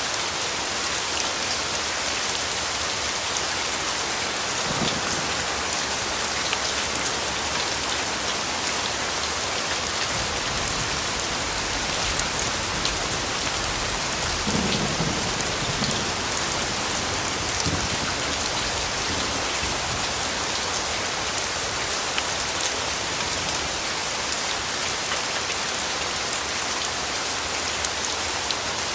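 Steady, dense rainfall, drops pattering on a surface, with a brief low rumble about halfway through.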